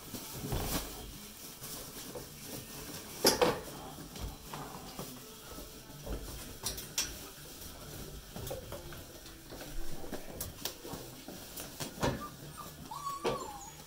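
Australian Shepherd puppies moving and playing, with scattered clicks and knocks and one louder knock about three seconds in. A brief puppy whimper comes near the end.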